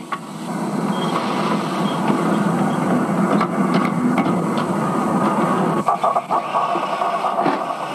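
Steady noisy working sound of miniature steam locomotives in a railway yard, with scattered clicks and knocks, heard on an old Super 8 film soundtrack.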